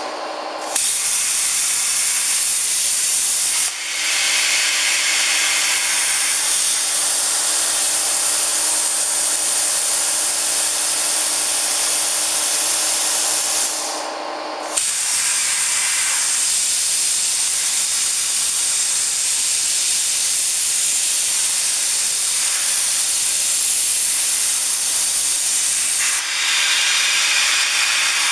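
Oxy-fuel cutting torch on a CNC cutting machine, its gas jet hissing steadily and loudly. The hiss drops away for under a second right at the start and again about halfway through.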